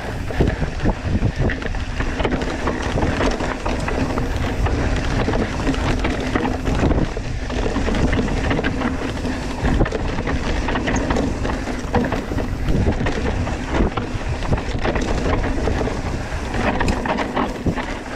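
Mountain bike ridden fast over rough, rocky singletrack, heard from an onboard action camera: steady wind noise on the microphone over constant rattling and knocking of the tyres and bike on the rocks.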